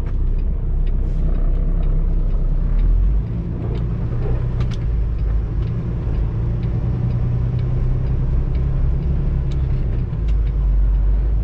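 Semi truck's diesel engine running, heard from inside the cab as the truck drives slowly: a steady low rumble that drops a little about three seconds in and comes back up near the end.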